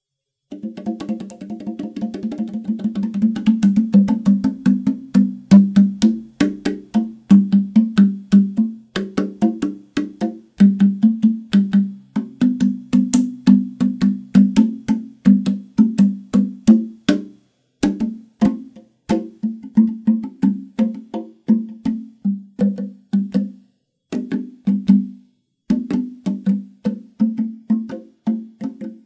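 Wooden 16-tongue slit drum (tongue drum) played with the fingers: a quick, steady stream of short, woody, low-pitched notes that starts about half a second in, with a few brief breaks later on.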